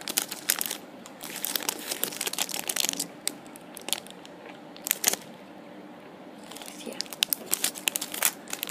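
Clear plastic bags around squishy toys crinkling as they are handled, with spells of sharp crackles and a quieter stretch a little past the middle.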